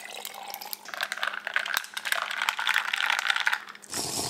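Cold brew coffee poured from a plastic jug into a glass mason jar, a crackly pouring sound full of small clicks. About four seconds in, a steady slurp as the coffee is sipped through a glass straw.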